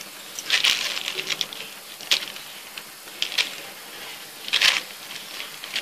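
Plastic sheet crinkling and a plastic food box clicking as coated rolls are set into it, in about four short bursts.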